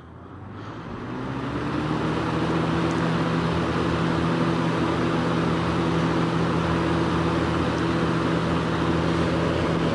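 1990–91 Galaxy 3713 box fan with a replacement Cyclone blade, switched on at high speed: it spins up over about two seconds, then runs steadily with a rush of air over a motor hum.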